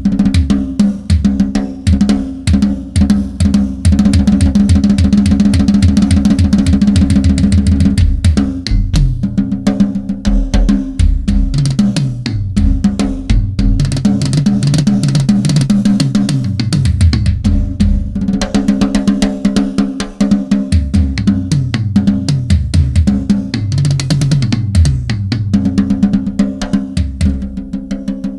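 Drum kit solo in a tribal style: fast, driving tom-tom and snare patterns over the bass drum, with dense rolls and cymbal crashes at times.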